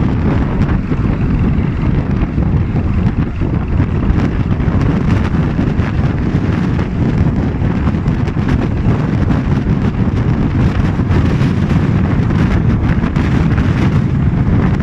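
Steady road and wind noise from a vehicle moving at highway speed, with wind buffeting the phone's microphone at the window.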